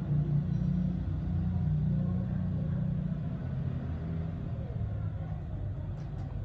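Steady low background rumble with a slowly shifting low hum, and two faint small clicks near the end.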